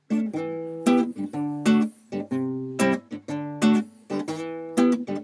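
Classical nylon-string guitar played in a steady rhythm, bass notes alternating with sharp chord strums, with no voice.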